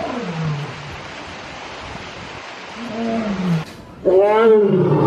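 Lion roaring: a series of deep calls, the first sliding down steeply in pitch, the loudest one near the end.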